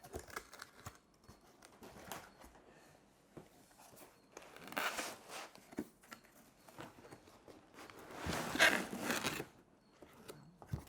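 Laptop's cardboard box being opened by hand and its packing handled: scattered light clicks and knocks, with two longer noisy stretches, one about five seconds in and a louder one near the end.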